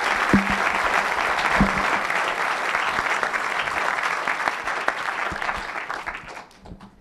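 Audience applauding, dying away near the end. Two low thumps come through about half a second and a second and a half in.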